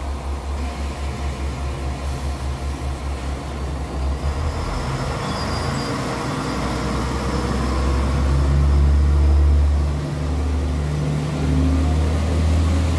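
A train moving slowly past the platform. First there is a low pulsing rumble, then a steadier, louder rumble as the cars go by, loudest about two-thirds of the way through.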